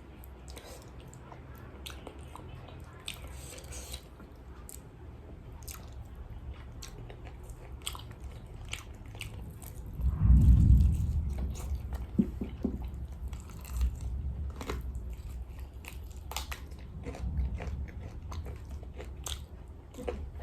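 Close-miked biting and chewing of crispy fried chicken, with many sharp crunches of the fried coating. About halfway through comes a loud low thump.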